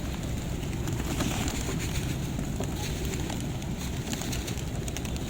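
Feral street pigeons cooing while they feed, with many short clicks over a steady low rumble.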